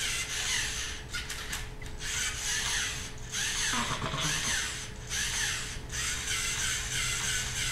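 LEGO Mindstorms NXT servo motors whirring and plastic gears clattering in a run of short repeated strokes as the scorpion robot works its legs and stinger.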